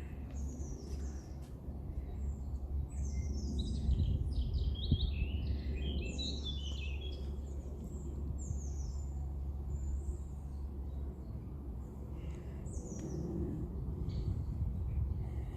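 Several songbirds singing and calling: quick overlapping chirps and trills, busiest a few seconds in and again briefly near the end, over a steady low rumble.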